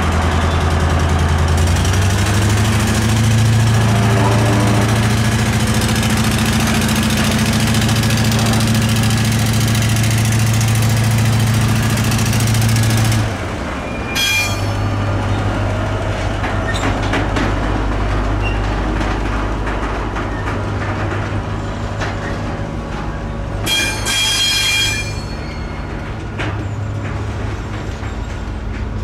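Diesel shunting locomotive engine running loud and steady, its pitch climbing about two seconds in as it takes up power, then dropping sharply about halfway through. The engine runs on lower, with two brief high squeals, one just after the drop and one near the end.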